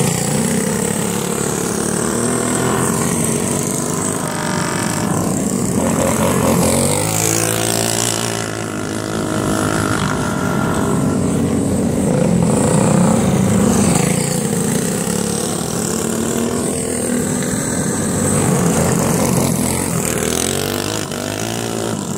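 Several racing go-kart engines running hard as the karts lap and pass, their pitch rising and falling as they slow for the corner and accelerate out of it, swelling louder as karts come close.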